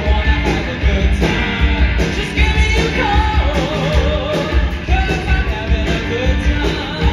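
Live rock band playing: a singer's voice over electric guitars and drums with a heavy, steady beat. A little after three seconds in the singer holds a note with vibrato.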